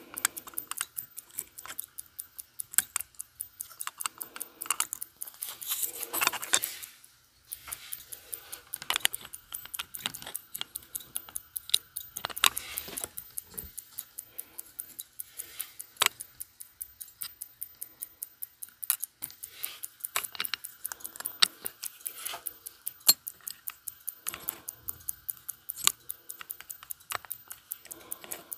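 Sicura jump-hour watch movement (Cal. BFG 158) ticking, picked up by a microphone clipped right beside its movement holder. The ticking is mixed with sharp metallic clicks of steel tweezers and parts being handled on the movement, and there is a short rustling noise about six seconds in.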